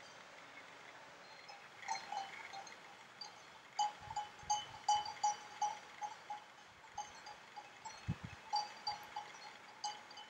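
Metal bells clanking irregularly, in clusters of several strikes a second, each strike ringing with a clear pitch. There are a couple of dull low thumps, one about four seconds in and one about eight seconds in.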